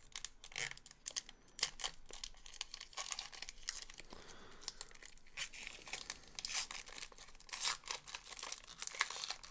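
Wrapper of a 2018 Panini Revolution Basketball hobby pack being torn open and crinkled by hand, with irregular crackling throughout.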